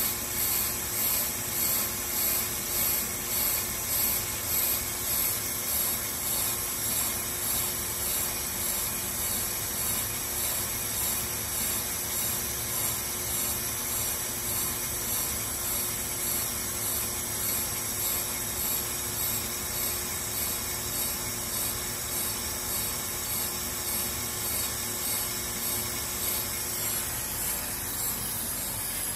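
Accu-Turn brake lathe machining a warped brake rotor: the cutting bits scrape steadily across the turning rotor faces over the hum of the lathe. The scraping pulses about twice a second, strongest at first and evening out later.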